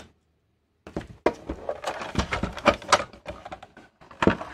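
Plastic clicks, knocks and rattles of a film scanner's casing being handled and its top cover pulled off, starting about a second in after a brief silence and bunched into a louder cluster near the end.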